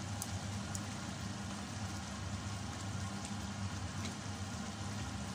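Coconut-milk adobo sauce simmering and bubbling in a stainless steel pot, with a few light ticks and pops, over a steady low hum.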